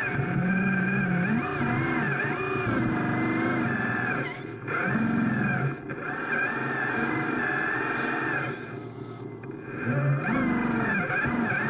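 Electric motors and gear drives of radio-controlled construction machines whining, several at once, their pitch rising and falling with the throttle and dropping away briefly a few times.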